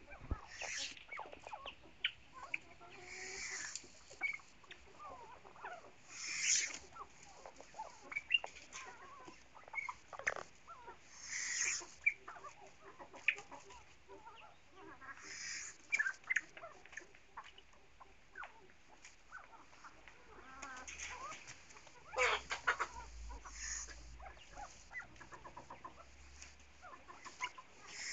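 Fowl clucking and calling: a scatter of short clucks and chirps, broken every few seconds by a louder, harsh hissing burst.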